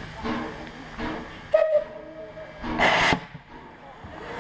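Metal clanks at the screw coupling between a steam locomotive and a wooden carriage as it is worked by hand. The loudest is a sharp clank about one and a half seconds in that rings briefly, and a short hiss follows near the three-second mark.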